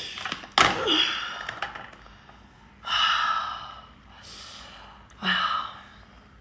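A sharp snap about half a second in as the cooked lobster's shell breaks, then a woman's breathy gasps and sighs, one about three seconds in and another past five seconds.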